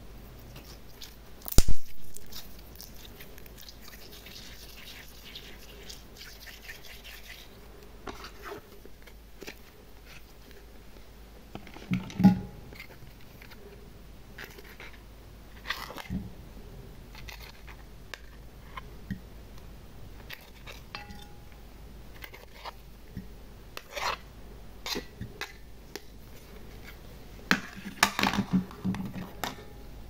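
Scattered taps, clicks and knocks of small plastic toy pieces, glitter and sequins being handled and set into a glass dish. The loudest is a sharp knock about one and a half seconds in, with a faint scraping hiss for a few seconds after it.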